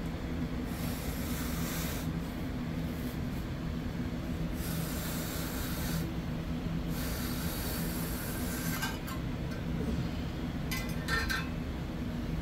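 Hand-pushed ductboard grooving tool cutting a fold groove through fiberglass duct board along a straightedge, in a few long pushes, with a few sharp clicks near the end. A steady low hum runs underneath.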